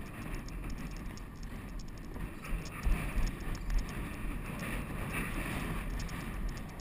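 Steady wind rumble on the microphone of a camera riding on a moving horse, with a few dull thumps about three seconds in.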